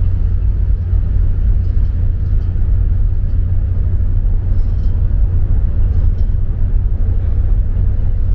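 Steady deep rumble with a rush of air over it, aboard a cruise ferry under way.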